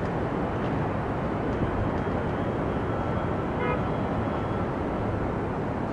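Steady rumble of city traffic and wind heard from a high-rise rooftop. A faint thin tone sounds for a couple of seconds in the middle, with a short pitched beep about three and a half seconds in.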